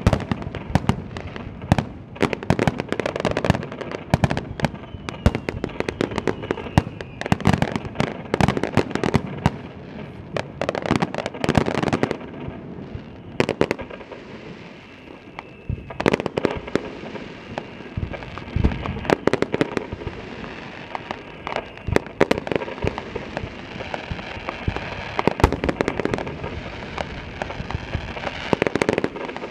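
Japanese star mine fireworks barrage: aerial shells fired and bursting in rapid succession, with many overlapping bangs and crackles. The bangs thin out for a few seconds around the middle, then pick up again.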